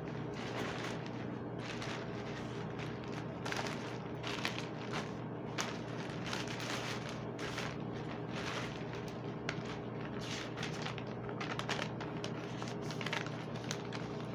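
Plastic wrapping and bubble wrap crinkling and crackling as it is pulled and torn off a parcel, in many quick bursts, over a steady low hum.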